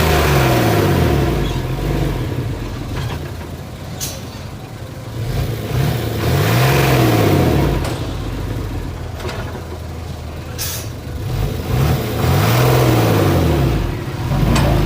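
Heavy diesel engine revving up and falling back three times, about six seconds apart, with two brief sharp hisses between the revs.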